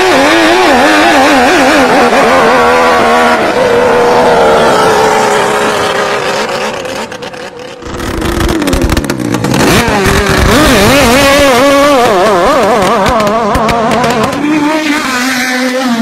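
Small speed-boat engine running at high revs, its pitch wavering quickly up and down. It drops away about seven seconds in and picks up again a second later.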